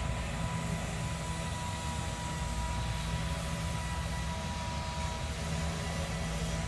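Heavy construction machinery running steadily: a low engine hum with a steady high whine over it.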